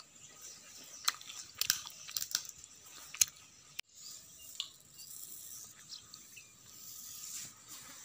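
Dry peanut shells and kernels crunching and cracking, a few sharp cracks in a row. After a sudden cut about halfway through, a hand sifts through a heap of small dry grains with a soft, steady rustle.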